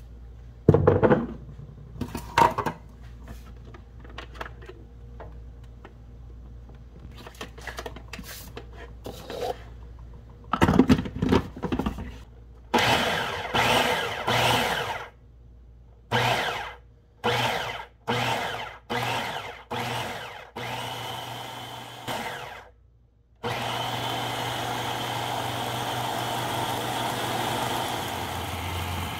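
Food processor mixing vital wheat gluten, flour and pureed chickpeas into seitan dough: scattered clicks and knocks at first, then about ten short pulses of the motor, then it runs steadily from about three quarters of the way in.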